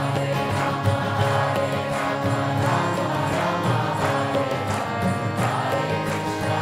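Devotional chanting: voices singing a mantra together over instruments, with a steady low drone underneath.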